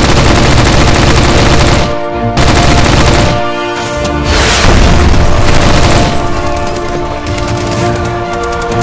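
Rapid machine-gun fire sound effects over background music. The firing breaks off briefly about two and three and a half seconds in.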